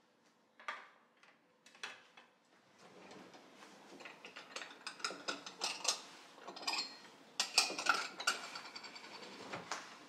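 Glass and ceramic bowls clinking and rattling against each other as they are moved in a kitchen drawer. Two separate knocks come first, then a dense run of clinks that is loudest about three quarters of the way through.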